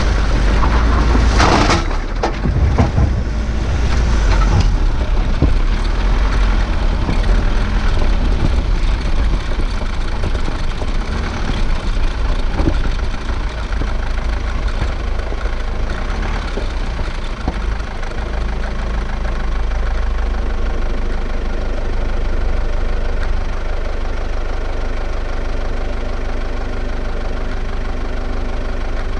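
A vehicle engine idling steadily under a low rumble. There are a few loud knocks and bursts of noise in the first few seconds.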